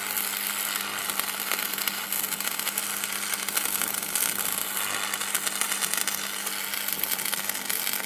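Electricity sound effect: a steady electrical hum under dense, continuous crackling.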